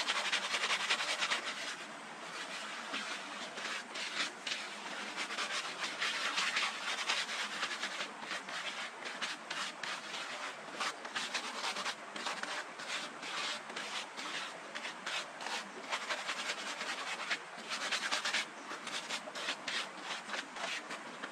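Continuous rubbing and scraping of hands working soil, in many short strokes, as earth is dug and smoothed firm by hand.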